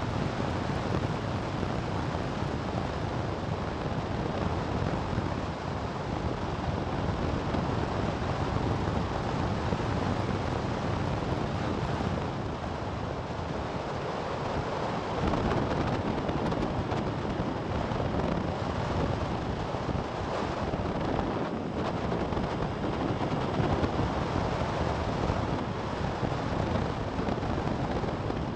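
Wind rushing over the microphone on a motorcycle ride, with road and engine noise mixed in. It eases briefly about halfway through.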